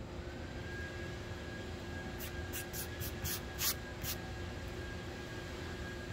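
Aerosol spray-paint can giving a quick run of about seven short hissing bursts over a couple of seconds, starting about two seconds in.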